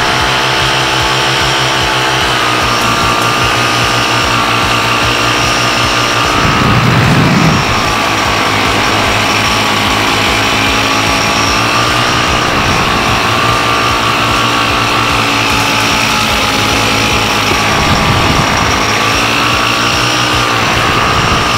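Paramotor's two-stroke engine and propeller running steadily in flight, its pitch rising and falling slightly with the throttle. A brief rush of wind noise on the microphone about seven seconds in.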